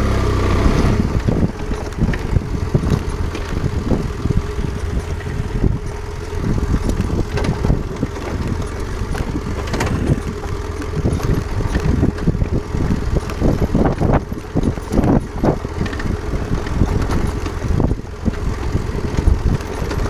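Adventure motorcycle ridden down a rocky dirt trail: the engine running under an uneven rumble of knocks and rattles as the bike goes over the rough ground.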